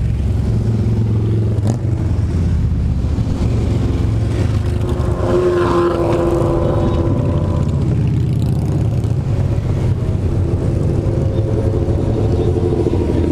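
A procession of motorcycles riding by, their engines running in a steady low drone. The sound swells for a moment around six seconds in.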